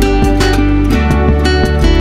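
Instrumental background music led by a strummed acoustic guitar over a bass line, with a steady beat.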